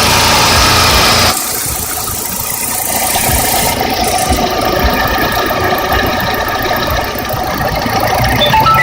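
Lada VAZ-21126 1.6-litre 16-valve four-cylinder engine idling warm with a repetitive piston knock, the sign of piston slap from its STK pistons, which knock much louder when cold. A louder noisy sound over the first second cuts off abruptly.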